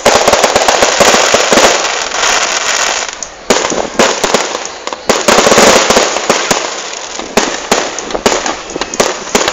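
Aerial fireworks display: dense crackling with many sharp pops and bangs, with sudden louder bursts about three and a half and five seconds in.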